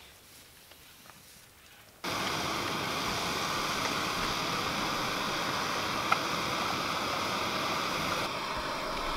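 Small backpacking gas stove burning at full flame: a steady, loud hissing roar, likened to a jet engine, that starts suddenly about two seconds in after near quiet. There is a single small click about six seconds in.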